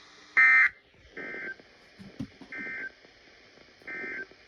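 Emergency Alert System end-of-message data bursts on a radio: three short, identical, warbling digital squawks about a second and a bit apart, which close the alert. A louder, shorter electronic burst comes just before them, about half a second in.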